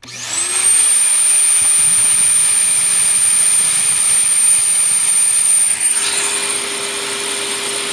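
Wet/dry shop vacuum switched on, its motor spinning up within a second to a loud, steady high whine with a lower hum. It is blowing its exhaust air into a sprinkler line to purge the water left in the pipes.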